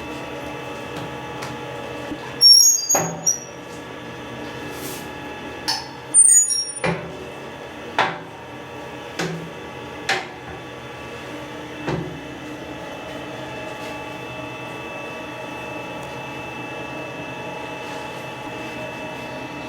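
Steady hum of bakery machinery with a run of sharp metal clanks and knocks, the loudest two ringing with a high clink, in the first half; after that only the hum goes on.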